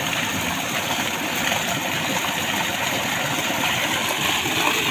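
Steady rushing and splashing of water pumped from an irrigation well, pouring out of a PVC outlet pipe into a concrete basin. The pump is primed and delivering a full flow. The rush grows brighter near the end.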